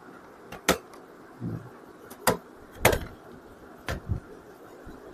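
Plastic clips of a laptop's bottom cover snapping loose as the case is pried open with a pry tool: five sharp clicks with a duller knock between the first two.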